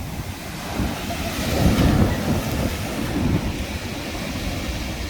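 Ocean waves on the shore: a wave breaks in a swelling rush of noise about a second and a half in, then the surf runs on as a steady rumbling wash.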